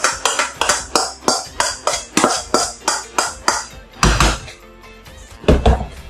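A spoon scraping and tapping chopped tomato mix out of a stainless steel bowl into a pan of risotto, in a quick run of short scrapes, then two heavier knocks near the end. Background music plays.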